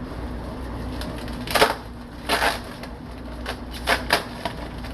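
Packing tape on a cardboard shipping box being cut and the box opened: a handful of short scraping, crinkling noises, the loudest about one and a half seconds in.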